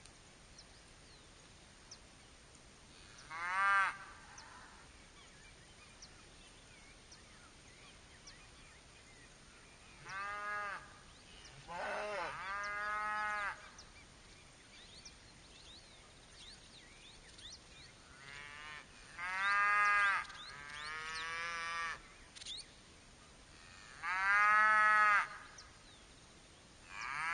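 Cattle mooing: repeated drawn-out calls, each about a second long, a few seconds apart, over a quiet background with faint high chirps.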